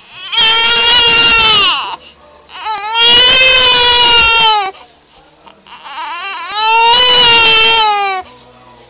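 Infant crying: three long, loud wails of about one and a half seconds each, each falling in pitch at its end, with short pauses between.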